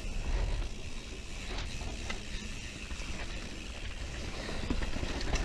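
Propain Spindrift enduro mountain bike rolling down a muddy, slippery dirt trail: tyre noise over a low rumble, with scattered clicks and rattles from the bike's chain and frame over bumps.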